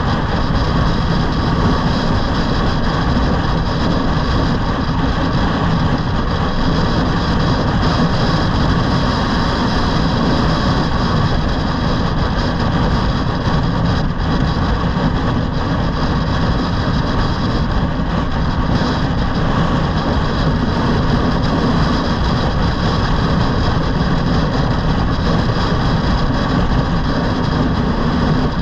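Steady wind rush buffeting the microphone while riding an electric scooter at speed, with faint steady high tones from the scooter's motor under it.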